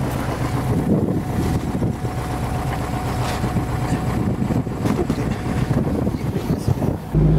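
Old ZIL swamp vehicle's Yaroslavl diesel engine running under way, with the cargo bed knocking and rattling irregularly and wind on the microphone. About seven seconds in the sound switches abruptly to a steadier, even drone.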